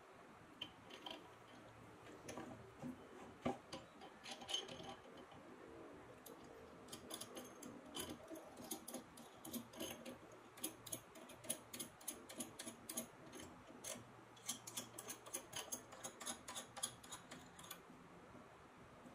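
Light metal-on-metal clicks and taps from hands fitting the threaded depth-stop rod to the cast-iron drill press head: a few separate knocks at first, then about six seconds in, runs of quick, uneven clicks.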